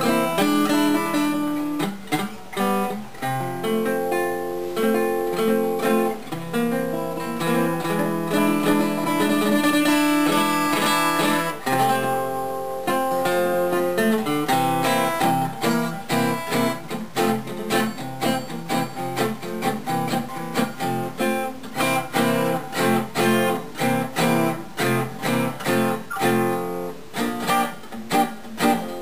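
Gibson L-48 archtop acoustic guitar played solo after its repair: held strummed chords for about the first twelve seconds, then quicker picked and strummed notes.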